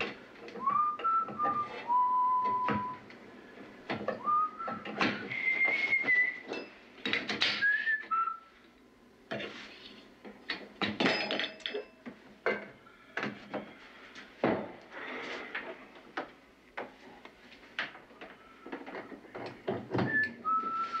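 Whistling: short notes, some held steady and some sliding up or down, mostly in the first half and again near the end. Over it run many irregular short noisy bursts.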